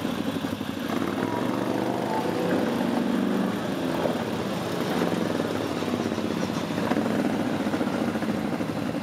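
ATV (quad bike) engines running in mud, the revs rising and falling unevenly as a bogged quad is worked free.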